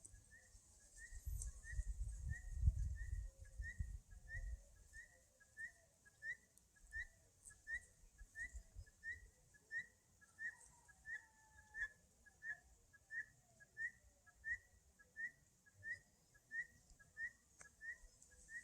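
A bird repeating a short, rising whistled note at an even pace, about one and a half notes a second. Low wind rumble on the microphone fades after the first few seconds.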